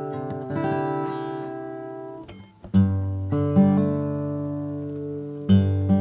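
Tokai Cat's Eyes TCE-30 acoustic guitar, solid spruce top with sapele back and sides, played as a demo: picked notes ring, break off briefly about halfway, then deep bass notes and full chords are struck and left to sustain, three times about a second apart.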